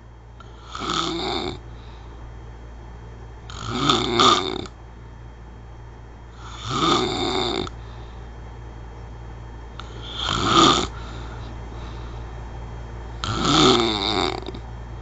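Snoring: five loud snores, each under a second long, about three seconds apart.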